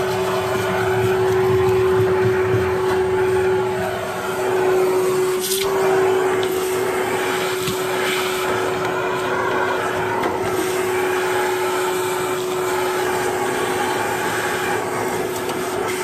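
Vacuum cleaner running steadily with a constant whine, sucking soot and debris out of a gas-fired steam boiler's combustion chamber with the burners removed. A single sharp knock sounds about five and a half seconds in.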